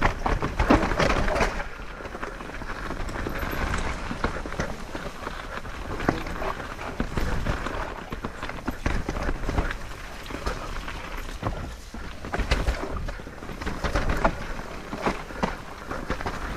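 Santa Cruz Bullit electric mountain bike riding a wet, slick dirt trail: a steady rush of tyre and wind noise with a low rumble, broken by frequent sharp knocks and rattles as the bike goes over rough ground.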